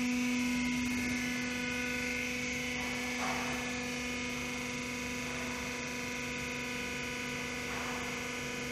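Vacuum homogenizer emulsifying mixer running with a steady electric hum, one strong low tone with fainter higher ones over it.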